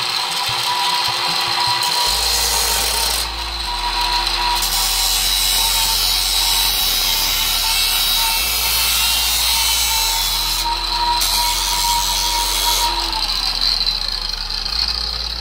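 Cordless angle grinder with a thin cut-off wheel running at full speed, a steady high whine as it grinds a small metal part and throws sparks. Near the end the wheel is lifted off and the motor winds down.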